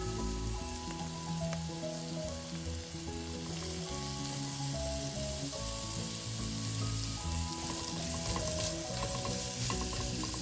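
Vegetables sizzling as they fry in a pan, a steady even hiss. Soft background music plays underneath.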